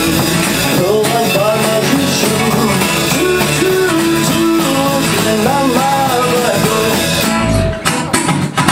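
Live rock and roll band playing: electric guitar and drum kit, with a lead line that bends up and down in pitch over the band. Near the end the playing changes to short, clipped hits.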